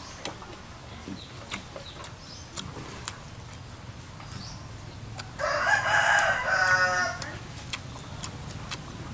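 A rooster crows once, a loud call about two seconds long beginning some five seconds in.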